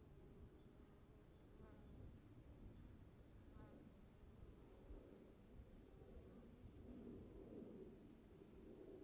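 Faint, steady high-pitched insect trilling, cricket-like, over a low rumble that swells briefly near the end.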